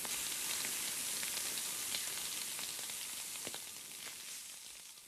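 Chicken sizzling on a grill: a dense, steady hiss with scattered sharp pops and crackles, fading out over the last second or two.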